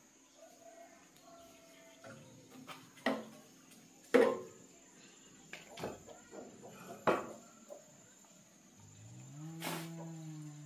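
Scattered metal knocks and clicks from tools and the banana chopper's electric motor being handled, the loudest about four seconds in. Near the end, one long low moo from cattle.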